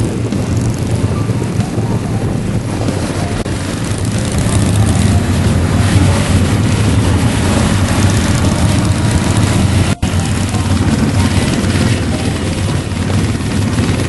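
Motorcycle engine running steadily while riding at road speed, with wind rushing over the microphone. The sound cuts out for a moment about ten seconds in.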